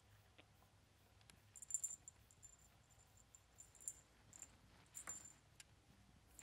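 Scottish Fold kitten playing with a feather toy on a rug: faint scattered clicks and rustles, the sharpest about two seconds in.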